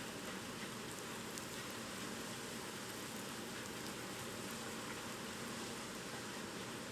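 Steady typhoon rain falling, an even hiss with a few faint scattered drop ticks.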